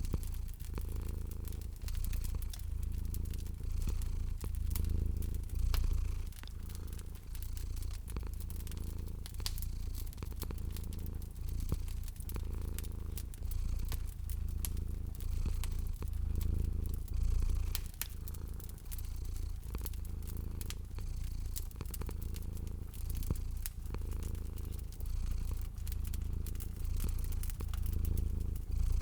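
Domestic cat purring in a low, steady rumble that swells and eases with each breath, about every two seconds, over a wood fire crackling with scattered small pops.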